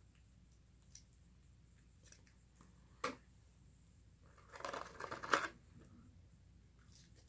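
Takeout food packaging being handled: a sharp click about three seconds in, then about a second of crinkling and rustling.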